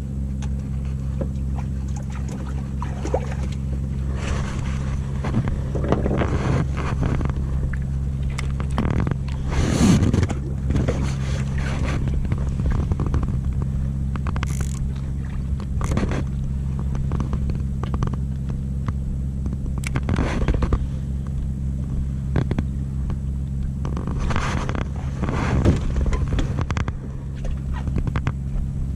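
Boat engine running steadily at a low, even pitch, with irregular short bursts of splashing and rustling over it.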